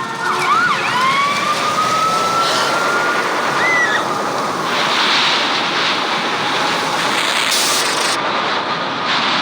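A siren wail that swoops and then slowly rises in pitch, over a loud, steady rushing noise like strong wind.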